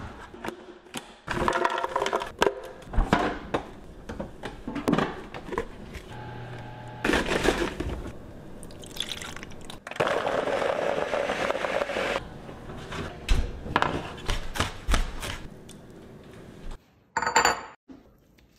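A countertop blender running for about two seconds, between a series of short knocks and clatter.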